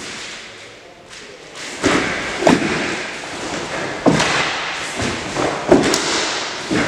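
Karate gis snapping and bare feet stamping on a wooden floor as three people move through a kata together. It is quiet for about the first two seconds, then comes a run of about seven sharp snaps and thuds, each trailed by a rustle of cloth.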